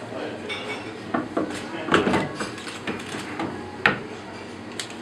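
Plastic vacuum bags of meat rustling and knocking as they are placed and arranged in the stainless-steel chamber of a vacuum packing machine, with several clattering knocks against the metal, the sharpest about four seconds in.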